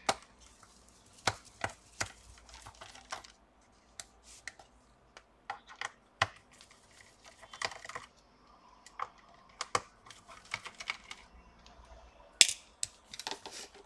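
Irregular small clicks and taps of a precision screwdriver working screws out of a laptop's bottom cover, the loudest click near the end.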